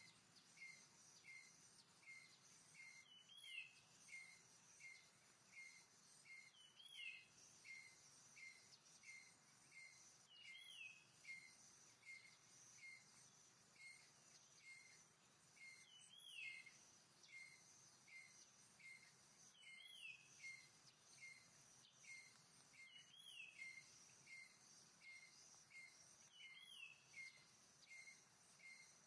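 Faint forest ambience: a bird repeating a short descending whistle every three to four seconds, with soft chirps about twice a second between them, over a steady high insect hum.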